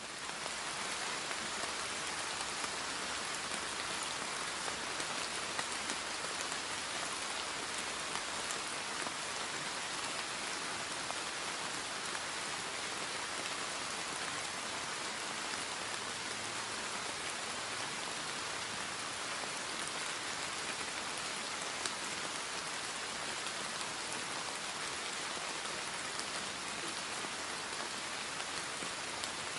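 Steady rain falling: an even hiss with scattered small drop ticks throughout.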